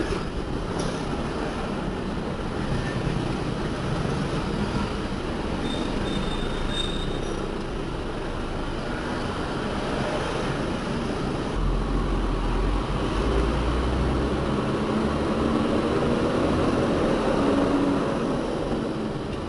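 Heavy diesel machinery running with a steady rumble that swells for a few seconds past the middle.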